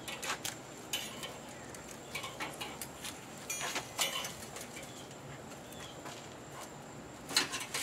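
Grilling fork and spatula clinking and scraping on a kettle grill's metal cooking grate as banana-leaf-wrapped fish fillets are lifted off. The sound comes as scattered clicks and light metallic taps, with the loudest clatter near the end.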